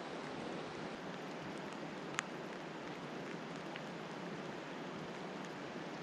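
Steady rain falling on lake water, an even hiss, with one sharp tick about two seconds in.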